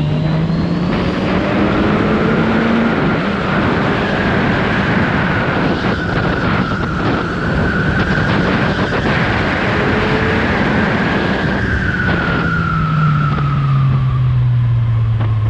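Kawasaki Z1000R's stock-exhaust inline-four running under way with wind rush. The engine note climbs slowly, holds, then drops over the last few seconds as the throttle eases, with a high whine rising and falling alongside.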